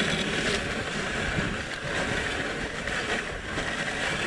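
Sled dragged over snow-covered ice, a continuous scraping hiss from its underside, mixed with wind on the microphone.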